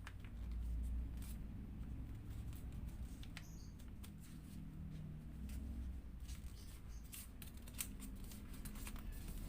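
A square sheet of origami paper being folded and creased by hand, with scattered small crackles and taps from the paper, over a low steady hum.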